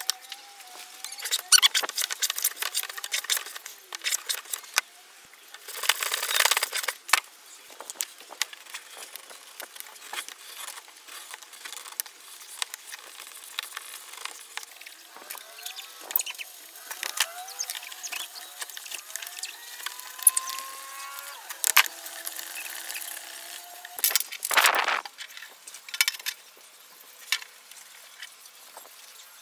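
Hand-tool work on a wooden hand router: short bursts of scraping and rubbing on wood, with many clicks and taps of small metal parts and a few faint squeaky glides.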